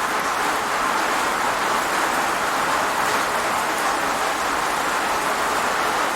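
Rain falling steadily: an even, unbroken hiss with no single drops standing out.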